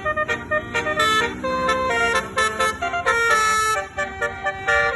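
Bus basuri horn, the multi-trumpet 'telolet' air horn, playing a tune: a quick run of stepped notes, often several pitches sounding together, with a short dip about four seconds in.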